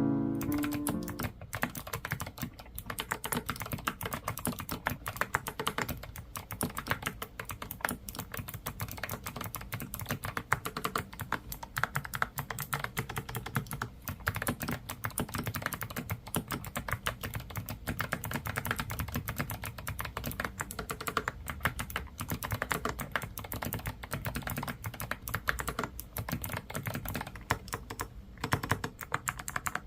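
Mechanical keyboard with Gateron Melodic switches and Outemu Dalgona keycaps being typed on quickly and steadily, a dense run of key clacks.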